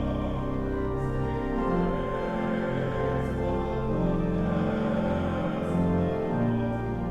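Church organ music: slow, sustained chords with held low bass notes that change every second or two.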